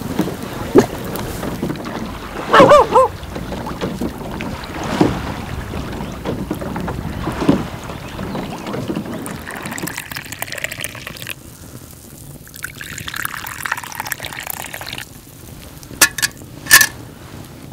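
Outdoor wind and small waves lapping, with scattered knocks and a brief wavering call about three seconds in. Near the end, two sharp metallic clinks from a metal kettle being lifted by its handle.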